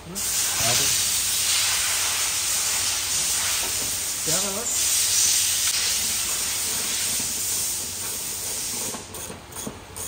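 A loud, steady hiss that starts suddenly and breaks up into short gaps near the end.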